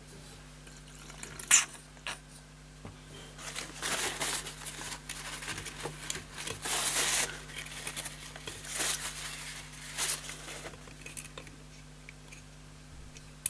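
Paper tissue rustling and crinkling in uneven strokes as it is rubbed over a toy car's exposed circuit board, after a single sharp click about a second and a half in. The car's motor stays silent: the water has not set it running.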